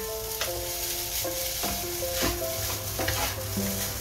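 Garlic fried rice sizzling in a non-stick wok as a wooden spatula stirs and scrapes it, with a stroke about every half second. Background music with held notes plays underneath.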